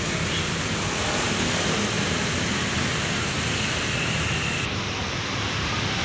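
Intercity coach bus's diesel engine running as the bus pulls past at close range: a steady low rumble under a broad rushing hiss.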